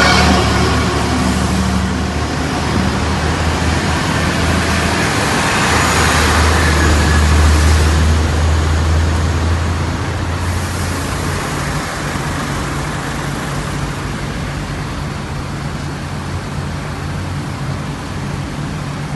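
Street traffic dominated by heavy diesel engines: a container truck and city buses running close by. A strong low engine drone is loudest in the first half and eases after about ten seconds into a steadier hum.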